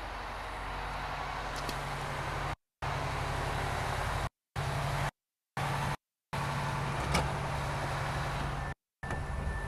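Oshkosh M1120A2 HEMTT 8x8 truck's diesel engine running steadily. The sound cuts to dead silence several times, and there is a sharp click about seven seconds in.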